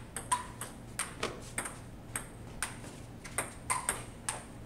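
Table-tennis rally: a celluloid-style ping-pong ball clicking back and forth off the paddles and the Kettler table, a quick, uneven run of about two to three sharp ticks a second.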